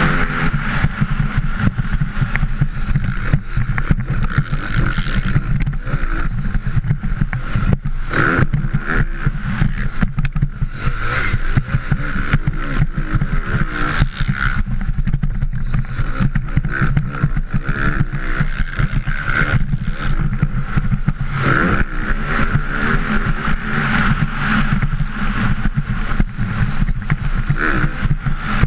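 Motocross bike engine revving hard, its pitch rising and falling again and again through the gears and throttle changes, heard from the rider's helmet-mounted camera.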